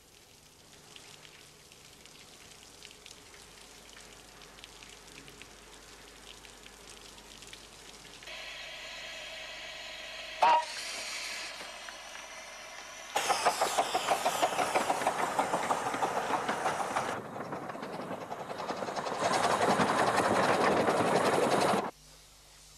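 Miniature 15-inch-gauge steam locomotive, faint at first. Steam hissing rises about eight seconds in, with a brief loud sharp sound about ten seconds in. Then come loud, fast rhythmic exhaust beats as the engine works, and a spell of loud steam hissing that cuts off suddenly near the end.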